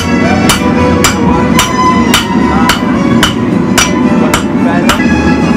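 Blacksmith's hand hammer striking a hot iron rod on an anvil in a steady rhythm, about ten blows at roughly two a second, drawing out the point of a hand-forged nail.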